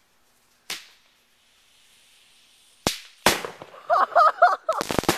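Fireworks packed inside a zucchini going off: a sharp pop, a soft hiss, then two loud bangs about three seconds in, followed by rapid crackling as the zucchini blows apart.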